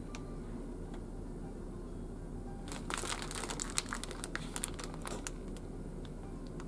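A plastic zip pouch crinkling and crackling as it is handled and turned over, in a burst from about three seconds in that lasts a couple of seconds, over a steady low hum.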